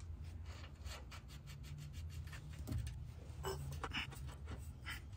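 A nut being spun by hand onto a threaded stud of a steering rack clamp: a run of faint rapid metal ticks, then a few sharper clicks, with gloved fingers rubbing against the metal. A low steady hum lies underneath.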